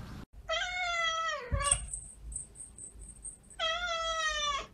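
Kitten meowing twice: two long, drawn-out meows about three seconds apart, with a sharp click between them.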